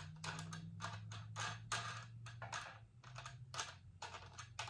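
Irregular light clicks and taps, a few a second, from fingers working and removing the top fitting of a metal backdrop stand.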